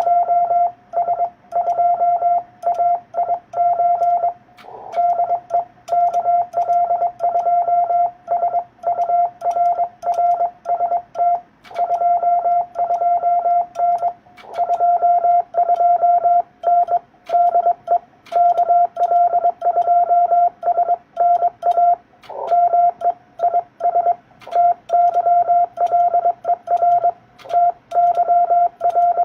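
Morse code (CW) tone from an amateur radio transceiver, one steady high-pitched note keyed on and off in dots and dashes with short breaks between words: a call being sent to a Japanese station.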